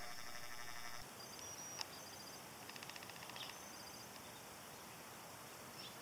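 Harris's hawks calling: one call lasting about a second at the start, then fainter, higher calls and a quick rapid series around the middle.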